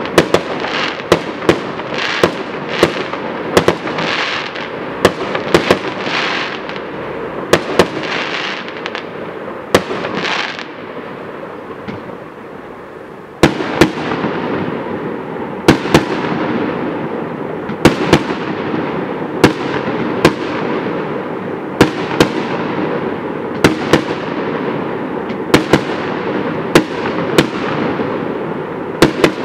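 Aerial firework shells bursting in a long series of sharp bangs, one or two a second, each trailing off into a fading rumble. The bangs pause for a few seconds a little before halfway, then start again.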